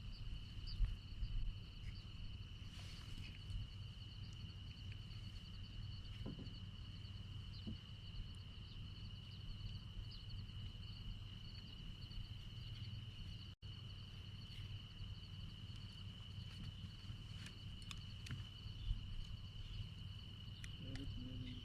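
A steady, high-pitched chorus of insects trilling without a break, over a low rumble, with a few faint clicks.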